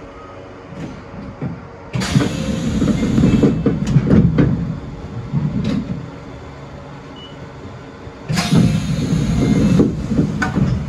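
Mizuma Railway electric train running, wheels clicking over rail joints. Two louder stretches of running noise each start and stop suddenly, one about two seconds in and one near the end.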